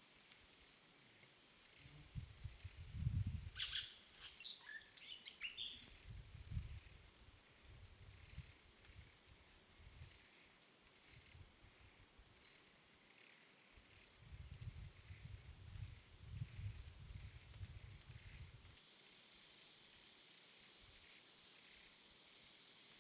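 Faint rural outdoor ambience: a steady high insect buzz, with a short run of bird chirps a few seconds in. Low rumbles come in twice.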